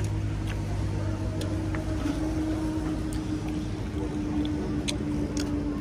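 A motor vehicle's engine running steadily, a low hum with a pitched drone that grows stronger about two seconds in and stops abruptly at the end. A few faint clicks lie over it.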